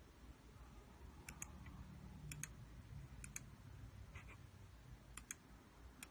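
Faint, sharp button clicks, each a quick press-and-release pair, about once a second starting about a second in, over a faint low hum: someone clicking through the menus of a computer interface.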